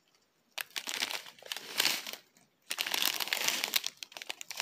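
Small clear plastic zip-lock bags of diamond-painting drills crinkling as they are handled, in two bouts with a short pause between them.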